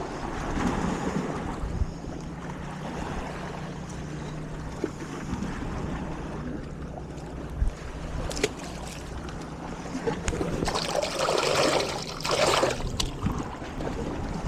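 Sea washing at the shore, with wind on the microphone. A louder rush of water comes near the end, and there are a few sharp clicks.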